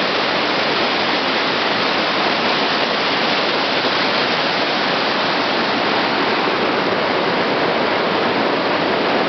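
Mountain stream tumbling over rocks in white-water cascades: a steady, loud rush of water.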